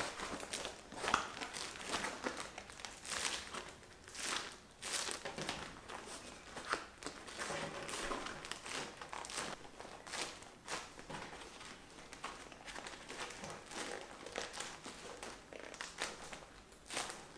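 Crinkling and rustling handling noise, with many irregular light clicks and crackles in a small room.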